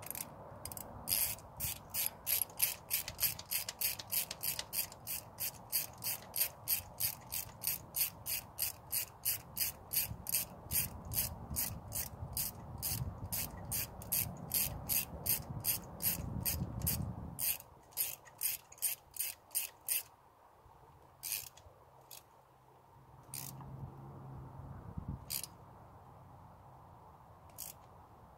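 Hand ratchet wrench clicking in a steady run of about three clicks a second as it turns a new spark plug into the engine. About two-thirds of the way through, the run stops and only a few single clicks follow.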